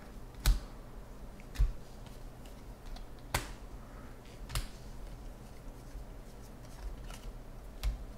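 Baseball cards being handled and sorted at a table: about five sharp clicks and knocks at uneven spacing as cards are flicked through and stacks tapped down, the first two the loudest, with a dull thump under them.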